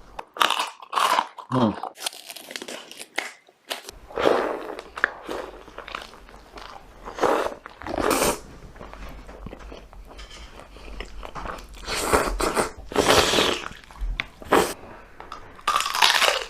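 Close-miked mukbang eating: crunchy bites and chewing coming unevenly, some loud and some soft.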